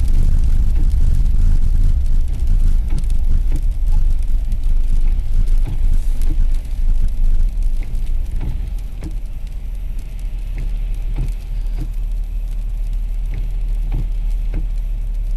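Car driving on snowy roads, heard from inside the cabin: a steady low road-and-engine rumble, with scattered light ticks that come more often in the second half.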